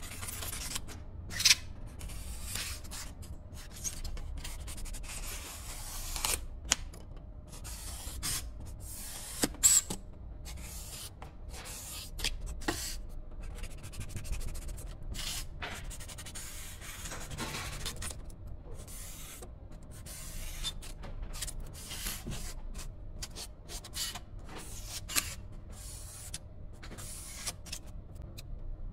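Snap-off utility knife blade slicing and scraping through expanded polystyrene foam in short, irregular strokes, with a few sharper clicks as cuts finish.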